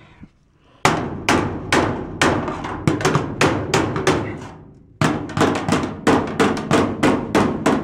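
A rock hammer striking the thin galvanized steel wall panel and channel at the base of a metal wall, knocking the bent sheet in to close a gap. A run of about nine blows, roughly two a second, starts about a second in. After a short pause comes a faster run of about a dozen blows, each ringing briefly.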